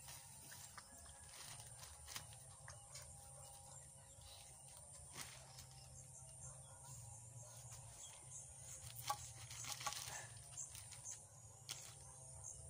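Quiet, scattered handling sounds of a knife cutting through a ripe jackfruit on a plastic-covered table: soft clicks, knocks and crinkles, a little louder about nine and ten seconds in, over a faint steady high hiss.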